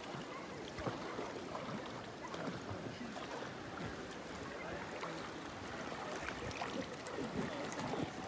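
Water splashing and lapping against inflatable river tubes as the riders kick their feet to move along, an even wash of small splashes and drips.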